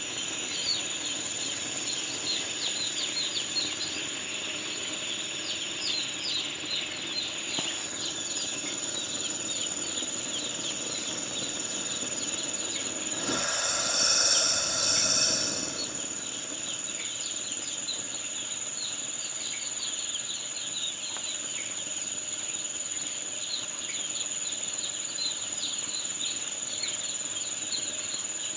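Dense chorus of day-old chicks peeping, many short rising calls overlapping, over a steady high whine. About halfway through, a louder hiss lasts for about two and a half seconds.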